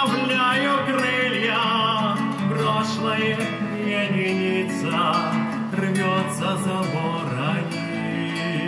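Acoustic guitar strumming in an instrumental passage of a song, with a wavering melody line above the chords.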